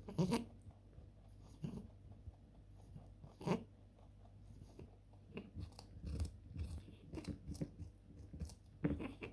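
A Flemish Giant rabbit biting and chewing a carrot: short, crisp crunches, with a faster run of small crunches in the second half.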